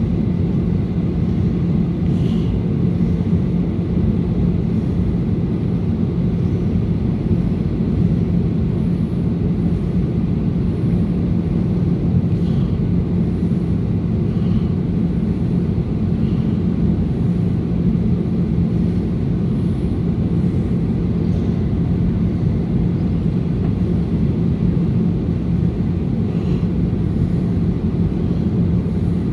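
Jet airliner cabin noise on approach: the steady hum of the engines and airflow, with a constant low drone, heard inside the cabin from a window seat.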